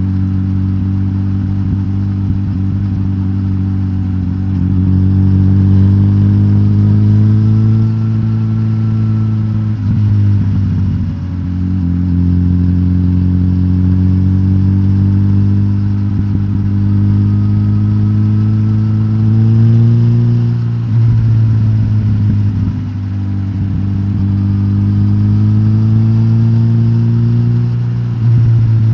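Suzuki GSX-S1000GT's K5-derived inline-four engine running through its de-catted stock exhaust under steady load. The engine note climbs slowly, then dips and starts lower three times: about ten seconds in, about twenty-one seconds in and near the end, as at gear changes.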